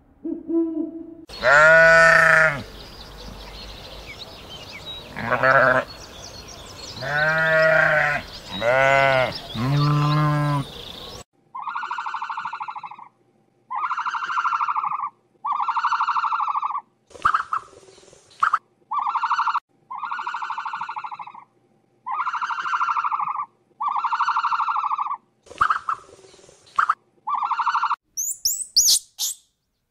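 A run of animal calls: first several loud, wavering pitched cries over a steady hiss, then bleat-like calls repeated about every second and a half, each under a second long. Near the end come a few quick, high rising chirps.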